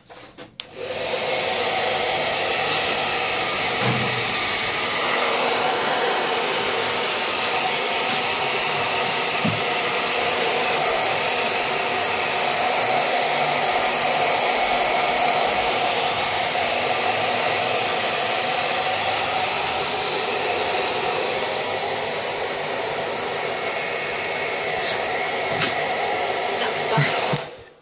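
Handheld hair dryer blowing steadily, switched on about a second in and switched off abruptly just before the end.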